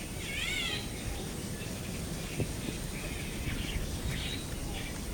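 Wild birds chirping and calling, with a quick warbling call about half a second in, over a steady low background rumble.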